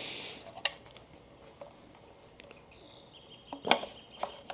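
Small sharp plastic clicks and handling knocks: one a little under a second in, then a cluster around three and a half seconds in. They come from a bulb socket being twisted and seated in a car's turn-signal lamp housing.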